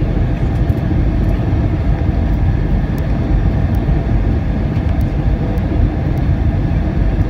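Cabin noise of an Airbus A320 landing: a loud, steady rush and low rumble from the engines and airflow, with faint light ticks now and then.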